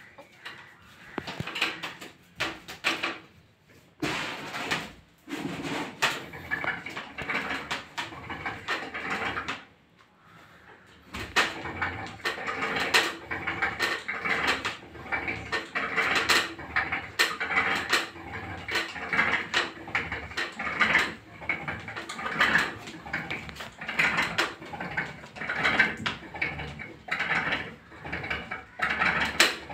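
Homemade rope-and-pulley back-exercise rig being worked: the rope and wooden bar creak and knock over and over as a hanging sack weight is pulled up and let down, with a short pause about ten seconds in.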